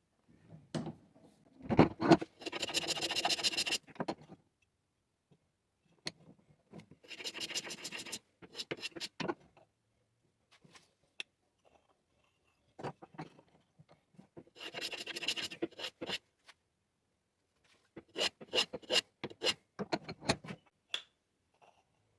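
Stanley No. 3 hand plane taking fine shavings off a cedar board: a knock, then a few long dry hissing strokes of the blade along the wood, and near the end a run of about seven short quick strokes.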